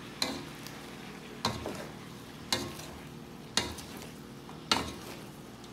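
Vegetables and noodles being tossed and stirred in a large enamel cooking pot with a wooden spoon: five sharp knocks of the utensils against the pot, about one a second, over a steady low background hiss.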